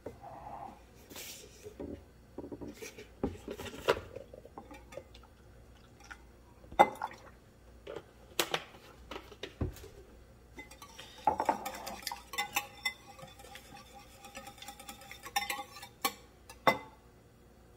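A wire whisk clinking and knocking against a ceramic mixing bowl as milk is poured into a beaten egg mixture and whisked in: scattered sharp clinks, with a busier run of quick strokes a little past the middle.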